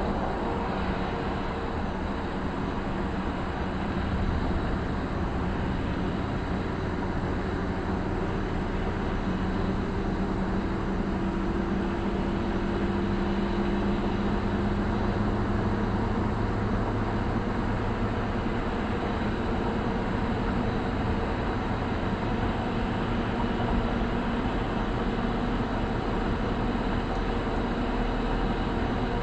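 Steady road drone of a car cruising on a highway, heard inside the cabin: tyre and wind noise with a faint engine hum that drifts slowly in pitch.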